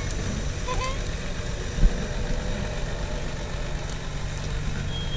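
Off-road 4x4 engine running steadily at low revs as the vehicle creeps across a steep slope, with a single thud about two seconds in.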